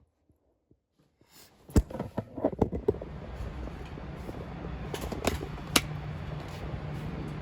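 A run of sharp clicks and knocks, then a steady low mechanical hum, fan-like, with a few more scattered clicks.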